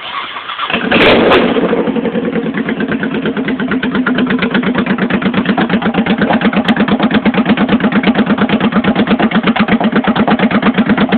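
Honda Shadow Sabre V-twin starting through Vance & Hines Longshots exhaust pipes, its carburettors not yet rejetted for them. It cranks briefly, catches with a loud burst about a second in, then settles into a steady idle with even exhaust pulses.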